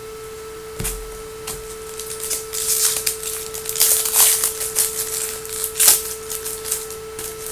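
Foil trading-card pack wrapper crinkling as a pack is torn open and the cards handled, with a soft thump about a second in and a steady electrical hum tone underneath.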